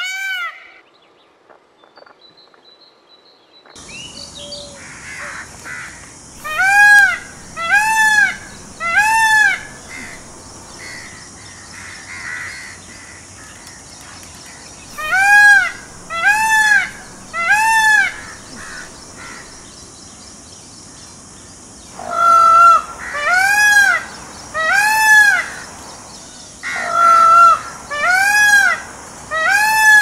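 Indian peacock calling: loud, ringing calls that rise and fall in pitch, about a second apart, in four runs of three. Under them is a steady high hiss that begins a few seconds in, after a near-silent start.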